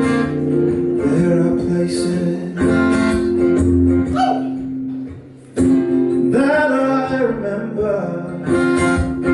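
Acoustic guitar strumming chords in a live song intro, with a brief break about five seconds in before the strumming comes back in strongly.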